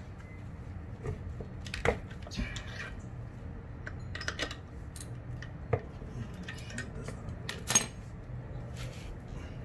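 Scattered metal clicks and clinks from a socket ratchet and loose bolts being worked on the aluminium cylinder head of a Nissan VG33 V6, with one louder metal clank near the end.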